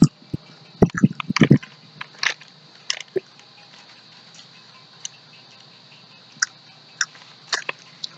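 Crispy Pringles Bites chips being bitten and chewed: a quick run of sharp crunches in the first second and a half, then single crunches scattered through the rest.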